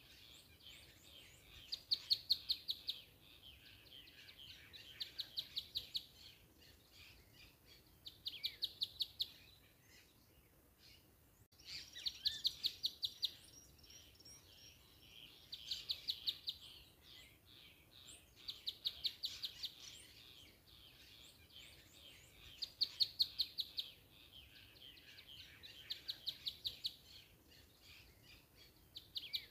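Birdsong: a rapid trill of many short notes, about a second long, repeated every three seconds or so, with fainter chirps between.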